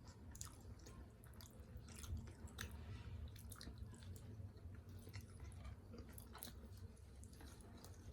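Close-miked chewing of steamed chicken momos (dumplings): soft, wet mouth clicks and smacks at an irregular pace.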